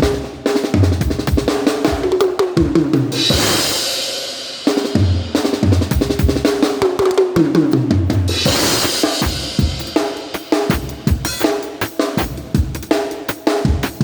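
Drum kit played at a band's soundcheck: a steady beat of kick and snare, with a fill falling down the toms about three seconds in and again about eight seconds in, each ending on a cymbal crash.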